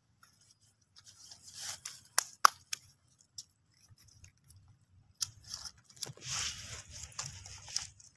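Rustling and scraping of a hand and a stick stirring a pile of weaver-ant brood and dry debris on banana leaves. There are a couple of sharp clicks about two and a half seconds in and a longer, denser rustle near the end.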